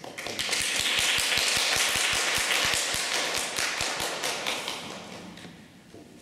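Audience applauding in a room, with one pair of hands clapping close to the microphone about five times a second. The applause dies away about five seconds in.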